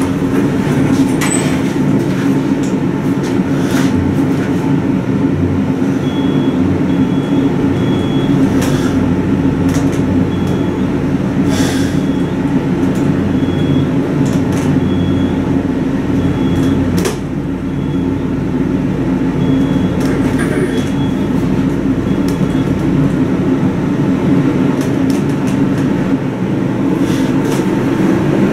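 Glass elevator car travelling down: a steady low hum and rumble of the ride, with a few light clicks and knocks and a faint high beeping for a while in the middle.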